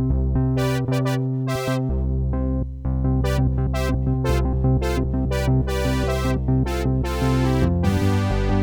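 Eight-voice analog Roland Jupiter-8 clone synthesizer, with IR3109 filters, playing a patch with a subtle delay: a held low bass under many short, bright notes. The bass drops out briefly a little after a second in, and a longer bright note sounds near the end.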